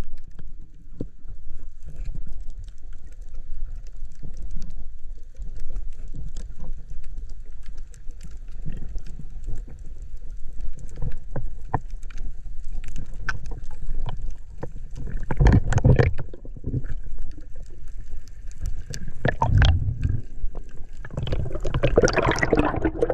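Underwater sound through a camera housing: a steady low rumble of water with scattered small clicks and knocks, and three louder bursts of bubbling noise in the last third.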